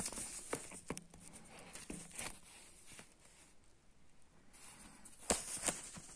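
Faint handling noise: scattered small clicks and taps, with two louder knocks about five seconds in.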